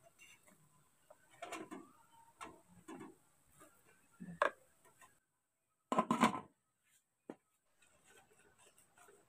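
Plastic spoon scooping steamed fermented cassava out of a plastic bowl: a few light knocks and scrapes, then a louder, brief clatter of spoon on plastic about six seconds in.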